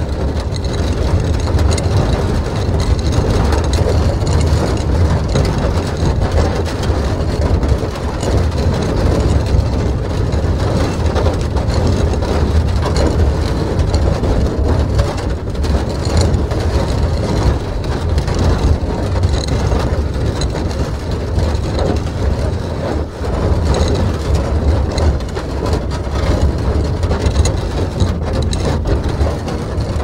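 Empty steel barrel rolling on a hard floor: a steady low rumble, full of small rattles and knocks.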